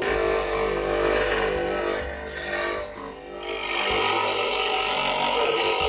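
Electric coconut grater running, its spinning serrated head scraping the flesh out of a coconut half pressed against it. The grinding eases around the middle and picks up again.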